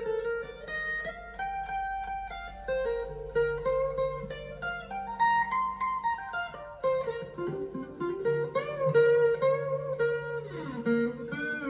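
Stratocaster-style electric guitar playing single-note lead lines around pentatonic scale shapes, the notes stepping up and down the neck. A note slides down in pitch near the end, over low held tones.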